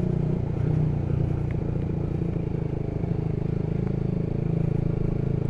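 Honda Supra GTR150's single-cylinder engine running steadily through a Tridente aftermarket exhaust, at an even, unchanging pitch.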